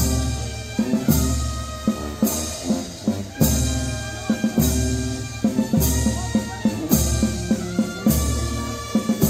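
Brass band playing a slow procession march: sustained brass chords over a bass drum and cymbal crash struck together on every beat, a little less than once a second.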